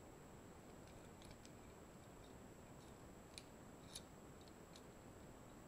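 A few faint, scattered clicks from a small pipe cutter being worked on a plastic pen barrel to cut off its end cap, over near silence.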